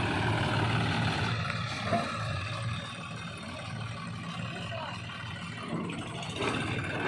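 Heavy machine's diesel engine running steadily, with a brief knock about two seconds in.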